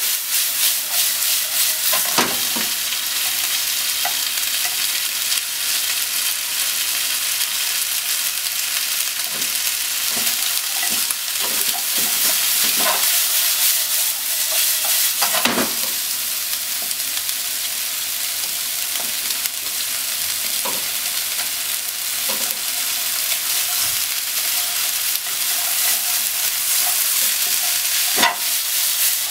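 Meat, sliced onion and kakinoki mushrooms sizzling steadily in a frying pan while a wooden spatula stirs and tosses them, with a few short scrapes and knocks against the pan.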